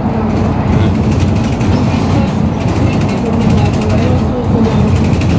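Steady engine drone and road rumble of a city bus heard from inside the moving bus.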